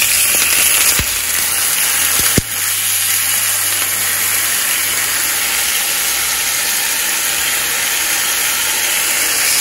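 Turkey bacon sizzling in hot oil in a frying pan, a loud, steady sizzle. Two sharp knocks come about one second and two and a half seconds in.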